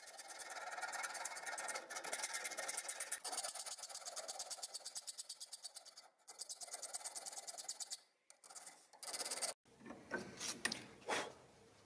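Flat hand file rasping along the edge of a sheet-metal propeller blade held in a vise, in quick, even strokes with two short pauses. Near the end the filing stops and a few short scrapes follow.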